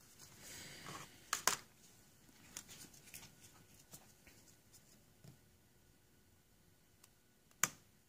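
Faint handling sounds of gloved hands moving a wire and soldering iron on a bench: a short rustle, two sharp clicks about a second and a half in, a few light ticks, and one sharp click near the end.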